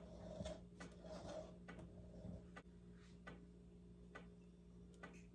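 Near silence: faint clicks about twice a second over a low steady hum. A silicone spatula softly spreads cake batter in a Bundt pan during the first second or so.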